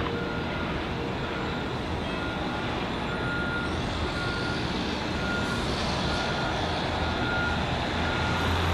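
A vehicle's reversing alarm beeping steadily, about once every 0.8 seconds, over a steady low rumble that slowly grows louder.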